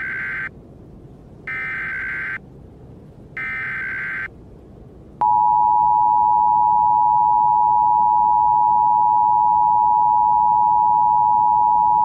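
Emergency Alert System tones: three short warbling bursts of the SAME digital header about a second apart, then, about five seconds in, the EAS attention signal, a loud steady two-tone beep held for about seven seconds, announcing the start of an alert.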